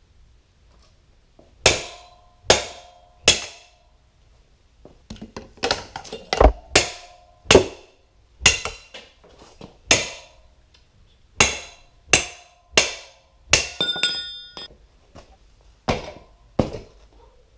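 Sharp metal knocks from working a wheel off a bicycle: about two dozen strikes, spaced irregularly, each with a short ring, and one longer, higher ring a little past the middle.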